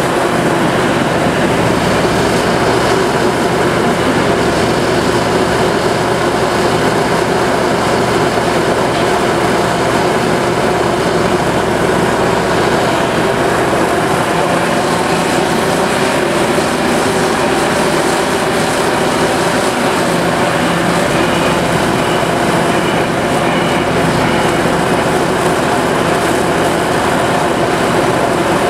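Liebherr 974B excavator's heavy diesel engine running steadily at working speed.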